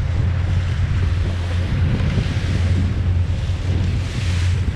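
A small fishing boat's engine running with a steady low hum, under wind on the microphone and sea noise that swells twice.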